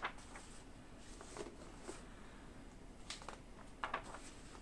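Faint handling of paper plan sheets from a model ship kit: a few short rustles and crinkles as the sheets are moved and turned.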